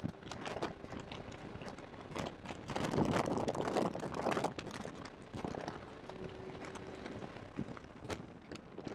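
In-cabin recording of a Porsche 991.2 GT3 at full throttle in fifth gear, its 4.0-litre flat-six heard only as a faint steady tone under a constant clatter of clicks and knocks. The clatter is the bad audio of a badly placed microphone.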